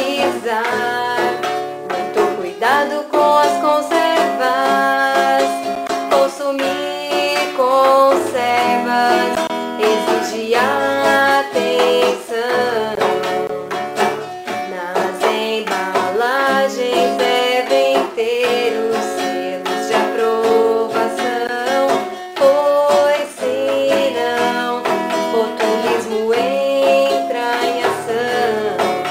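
A song with plucked-string accompaniment and a voice singing Portuguese lyrics over it.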